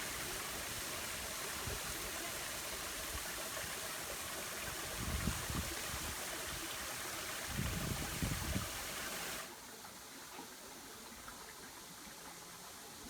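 Waterfall and stream water rushing as a steady hiss, with two brief low rumbles about five and eight seconds in. About nine seconds in it drops suddenly to a quieter, duller water sound.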